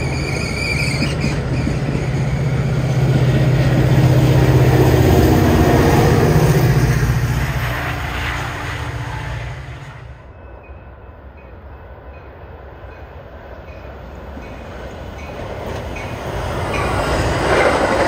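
Metra bilevel commuter cars rolling past close by, steel wheels rumbling on the rails, growing loudest in the middle before cutting off abruptly about ten seconds in. A quieter stretch follows as a train approaches from a distance, and the rumble swells again near the end as bilevel cars pass close by.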